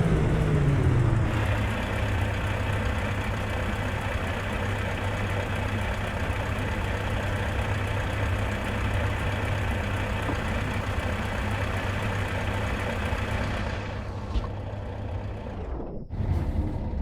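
Scania R520 truck's V8 diesel engine coming down off a rev and settling into a steady idle about a second in. Near the end the sound briefly drops out and a short louder burst follows.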